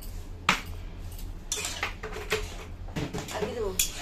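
Metal spatula clinking and scraping against a black iron wok (kadai) while stirring a cauliflower curry, with a sharp clink about half a second in and several lighter knocks after.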